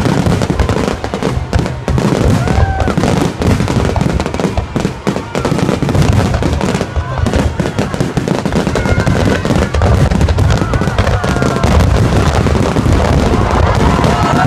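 Fireworks going off in a rapid, dense barrage of bangs and crackles, with a few short whistles.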